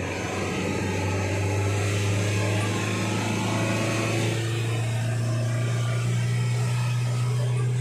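Truck engine running under load at a steady cruising speed, a strong low drone with road noise.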